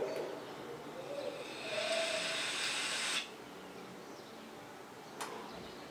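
Air hissing through the wide-open airflow of an Envii Terra RTA as a long draw is taken on its four-coil build fired at 100 W, with a faint whistle; it lasts about three seconds and stops suddenly. A single faint click follows near the end.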